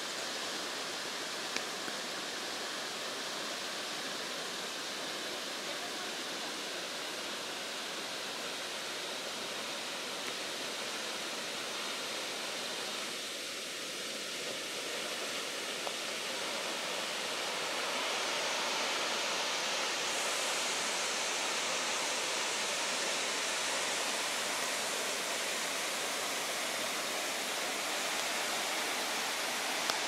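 A tall waterfall plunging down a cliff face into a rocky pool, heard as a steady rush of falling water. It grows somewhat louder and brighter a little past halfway through.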